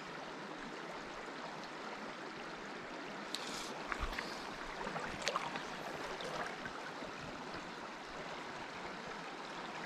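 River water flowing steadily. A few light clicks and a brief hiss stand out between about three and six seconds in.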